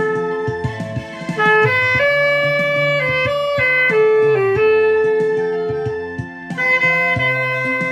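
Saxophone playing a trot melody in long held notes over a backing track.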